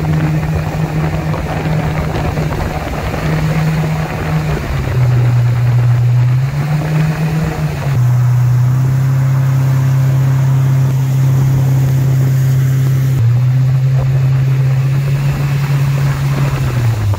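Mercury 80 Jet outboard, a 115 hp four-stroke with a water-jet drive, running the boat at planing speed over a rush of water and wind. Its note drops about five seconds in, climbs back, holds steady, and falls away near the end as the throttle comes off.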